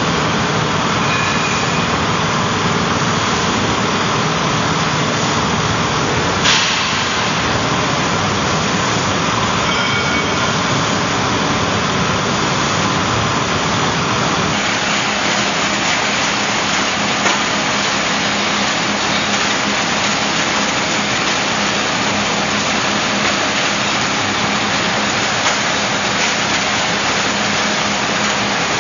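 Mineral processing machinery running: a steady engine and machine noise from a small gold washing plant. There is one sharp knock about six seconds in, and the noise changes character about halfway through.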